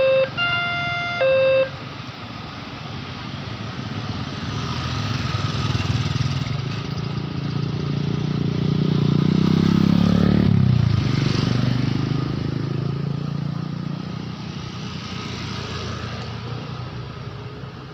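Railway level-crossing warning siren sounding its alternating tones, which cut off about two seconds in. A road vehicle's engine then grows louder, passes close about ten seconds in with its pitch falling, and fades away.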